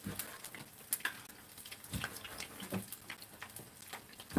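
Kitchen knife slicing squid on a wooden cutting board, with irregular light knocks as the blade meets the board.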